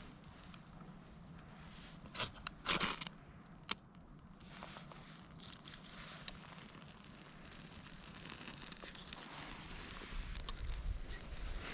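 Ferro rod (fire steel) scraped a few quick times about two to four seconds in, throwing sparks onto birch-bark dust and magnesium shavings to light tinder. Wind rumbles on the microphone near the end.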